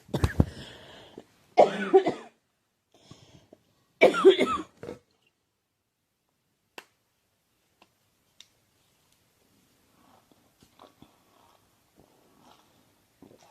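A woman coughing in a coughing fit, with three bouts of coughs: one at the start, one about a second and a half in and one about four seconds in. After that it goes mostly quiet, with a few faint clicks and small knocks.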